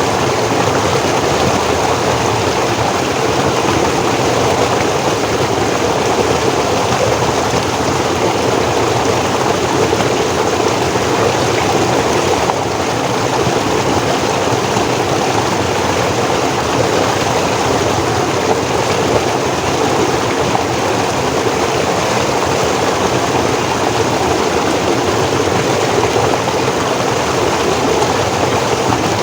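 Forest stream flowing over stones, a steady, unbroken rush of water.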